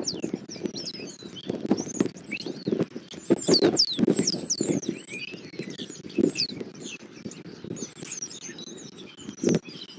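A crowd of small birds chirping busily, many quick down-slurred calls overlapping one another, over a low rustling and crackling with scattered knocks.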